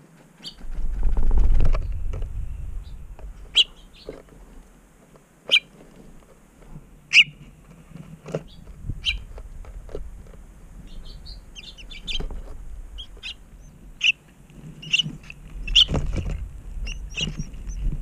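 Small songbirds chirping at a nest: short, sharp single chirps scattered through, coming more often in the second half. A low rumble near the start and again near the end is the loudest sound.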